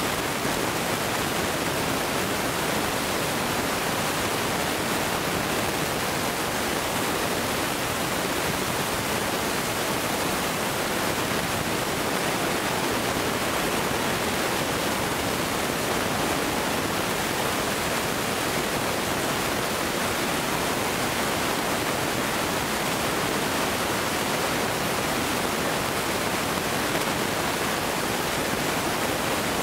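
A steady, even hiss with no bangs, pops or other events in it.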